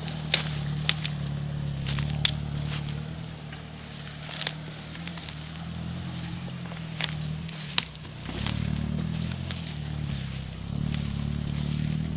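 Engine of an off-road 4x4 driving along a muddy forest track, a steady low drone that swells twice as it works through the mud. Sharp clicks and snaps come over it every few seconds.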